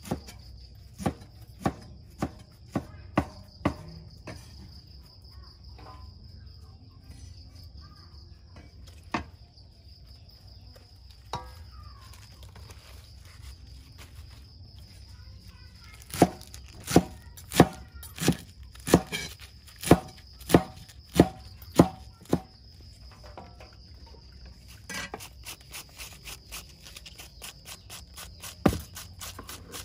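Kitchen knife chopping vegetables on a wooden cutting board: a few single chops, then a run of loud, even chops about one and a half a second, and near the end quicker, lighter strokes as cabbage is shredded. Crickets chirp steadily behind it.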